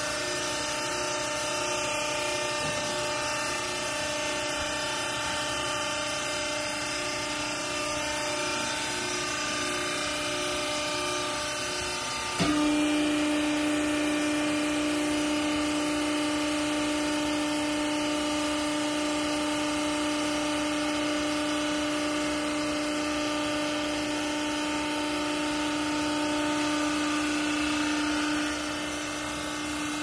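Hydraulic baler's electric motor and pump running with a steady whine. About twelve seconds in, the note jumps to a louder, lower steady tone, which eases back near the end.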